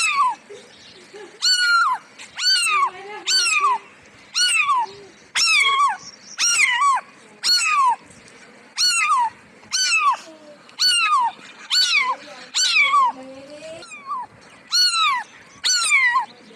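A cat meowing over and over: short, high meows, each falling in pitch, coming about once a second.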